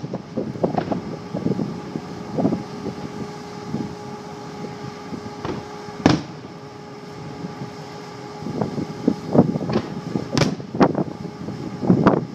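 Fireworks shells bursting overhead: a series of booms with rumbling tails, one sharp bang about halfway through and a quick run of bangs in the last few seconds. A steady hum runs underneath.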